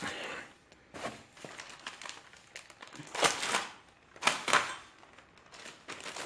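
Parcel packaging crinkling and rustling in irregular bursts as it is handled and cut open with a knife.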